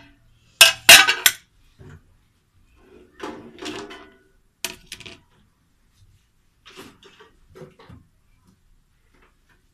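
Plastic basin, colander and tray being handled and set down on a tiled floor: a loud clatter in the first second or so, then scattered quieter knocks and rattles.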